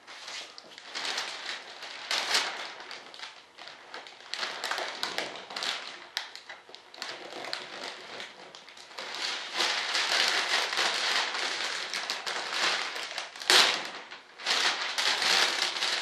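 Plastic vacuum-bagging film crinkling and rustling as it is handled and pressed down by hand, in uneven swells of small crackles, with one sharper, louder crackle near the end.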